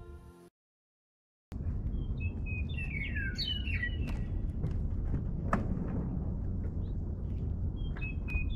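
Small birds chirping in short bursts of quick, sliding notes, twice, over a steady low outdoor rumble with a few faint clicks. It opens on the tail of fading music and a second of dead silence.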